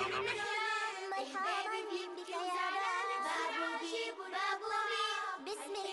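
A children's song: a high, child-like singing voice carrying a melody over light music, with wavering held notes.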